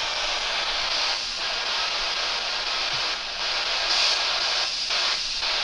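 Handheld spirit box radio sweeping through stations, giving a steady static hiss with short snatches of sound breaking through a few times.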